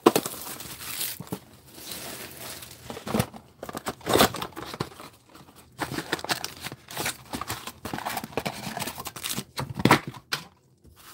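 Trading-card booster box packaging being torn open and crinkled by hand: irregular rips and crackles of cardboard and pack wrapper, with short pauses between.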